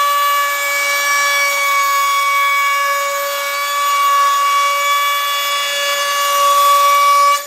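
Dremel rotary tool mounted under a small router table in a Dremel 335 plunge router attachment, running at speed with a steady high-pitched whine while a strip of wood is fed past a piloted router bit, routing a profile along its edge.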